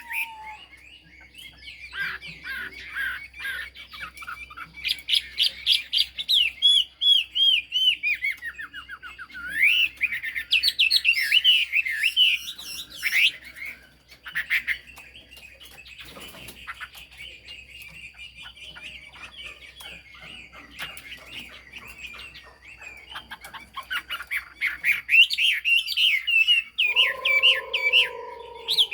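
Chinese hwamei (melodious laughingthrush) singing a long, varied song of fast whistled phrases that sweep up and down in pitch. Loud runs of notes come at the start, about ten seconds in, and again near the end, with softer, steady warbling between them.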